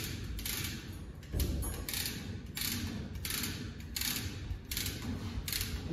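A hand tool worked in quick, even strokes, about two a second, each stroke a short burst of rapid clicking or rasping, over a steady low rumble.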